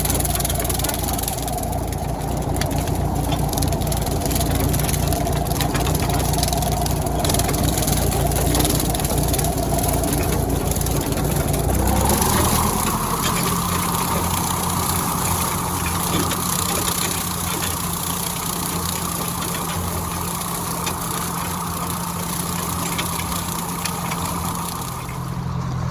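1956 Ford 640 tractor's four-cylinder engine running steadily with its PTO driving a bush hog rotary cutter; about halfway through the engine speeds up, and its pitch rises and then holds steady.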